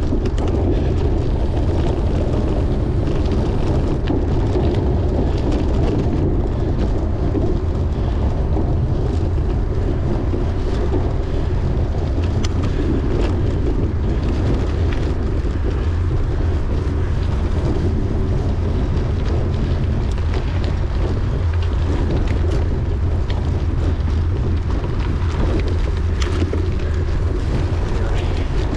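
Steady, loud wind rumble on the camera microphone of a bicycle being raced. Scattered clicks and knocks run through it.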